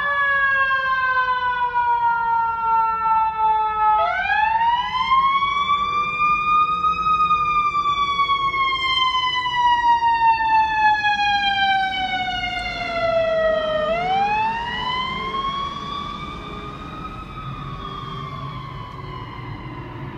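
Federal Signal eQ2B electronic siren on a fire department squad truck, imitating the wind-up and coast-down of a mechanical Q2B siren. Its pitch climbs sharply, then slides slowly down, three times. It grows somewhat fainter over the last few seconds as the truck drives away, with a low engine rumble underneath.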